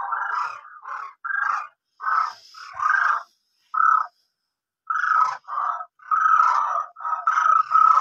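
A run of about ten short animal calls, each lasting under a second, pitched in the middle range and broken by brief silences.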